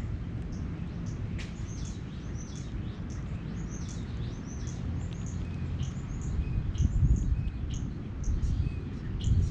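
Several small birds chirping in many short, quick notes, over a low background rumble that swells about seven seconds in.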